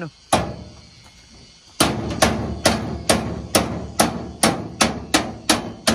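A hammer striking the metal side-compartment door of a truck camper body, each blow ringing on the sheet metal. One blow comes, then a pause of about a second and a half, then a steady run of blows at about two to three a second.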